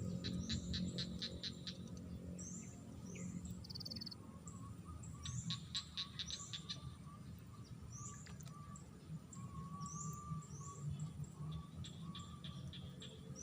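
Wild birds calling: short rising chirps repeated at intervals, with several quick rattling trains of notes, over a low steady outdoor murmur.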